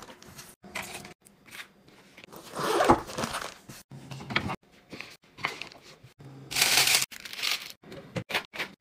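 Kitchen handling sounds in short, chopped bursts: a soft insulated lunch bag being opened, packaging rustling and crinkling, and things being set down. The loudest is a harsh tearing rasp lasting about half a second, about six and a half seconds in.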